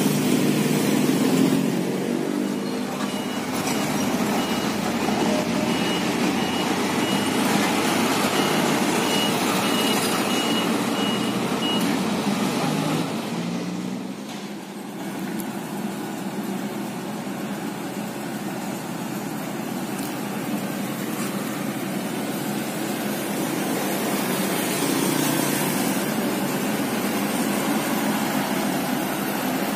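Diesel engines of Sakai road rollers running as they compact fresh asphalt. A reversing alarm sounds in evenly spaced high beeps from about two seconds in until about twelve seconds. After a short dip about halfway, the engine of a Sakai TS205 pneumatic-tyred roller runs on steadily.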